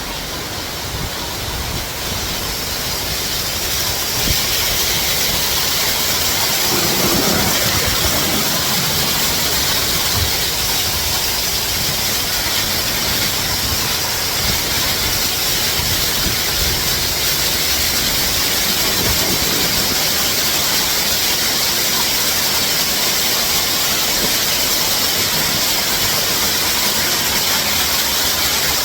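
Waterfall: a steady, continuous rush of falling water, swelling a little over the first few seconds.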